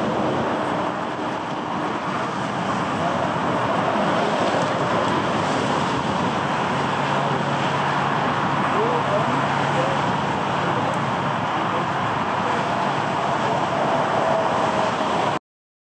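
A Boeing 737's jet engines heard as a steady, even rush while the airliner lands and rolls out along the runway, mixed with some wind. The sound cuts off suddenly near the end.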